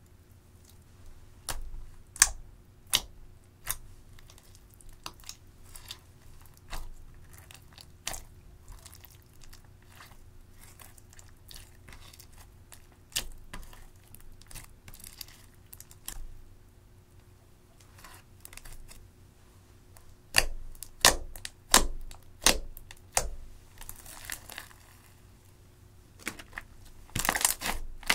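Hands kneading and stretching sticky clear slime mixed with glitter and crushed eyeshadow, giving irregular sharp sticky pops and crackles. The pops come thicker and louder about two-thirds of the way through and again at the end.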